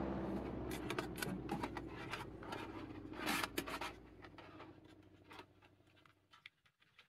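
Faint scratching and rustling with scattered short clicks, over a low rumble that fades away over the first four seconds.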